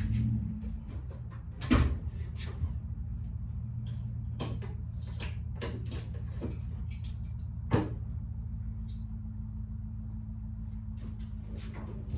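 A low, steady machine hum starts suddenly and keeps running, with scattered sharp clicks and knocks of tools and parts being handled over it, the loudest about two seconds in and again near eight seconds.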